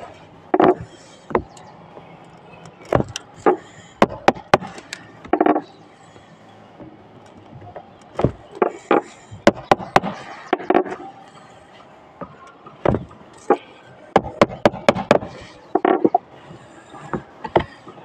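Hammer striking the end of a screwdriver handle, the screwdriver held upright as a punch against a hard surface: irregular runs of sharp taps with short pauses between them.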